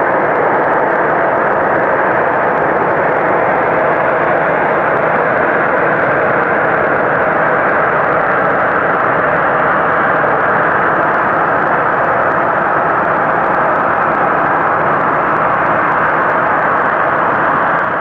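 A loud, steady, unpitched rumbling drone from the night sky, which the listeners could not trace to any aircraft.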